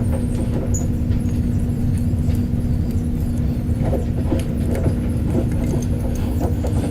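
A steady machine hum over a low rumble, with scattered small clicks and taps throughout.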